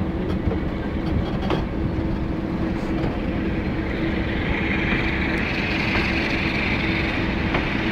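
Train pulling out, heard from an open coach window: the Class 47 diesel locomotive's twelve-cylinder Sulzer engine working steadily ahead, with wheels running on the rails. A higher whine builds from about halfway through.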